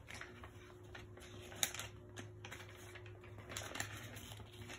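Faint rustles and light clicks of a paperback picture book being handled, with one sharp click about one and a half seconds in and another cluster near the end. A low steady hum runs underneath.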